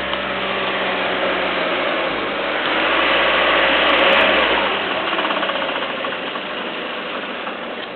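Peugeot 307 1.6 16v four-cylinder petrol engine running, with the odd clattering noise the owner is investigating. The sound swells to a brief rise around the middle, then falls back.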